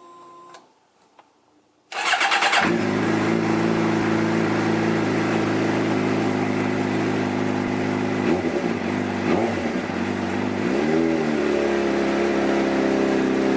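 A 2011 Suzuki GSX-R 600's inline-four engine starting about two seconds in and settling into a steady idle, now running on a freshly loaded Power Commander 5 fuel map. It gives a couple of brief throttle blips, then the engine speed rises a little near the end and holds there.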